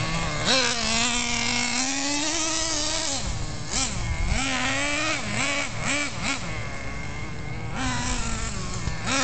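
Traxxas Jato 3.3's small two-stroke nitro engine buzzing at a high pitch, holding steady at first, then revving up and down in quick surges through the middle as the car is driven, then steadying near the end. The engine is being run in on 10% nitro, not flat out.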